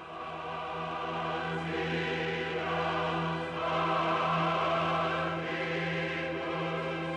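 Sacred-sounding choral music: a choir singing long held chords over a steady low note, swelling a little around the middle.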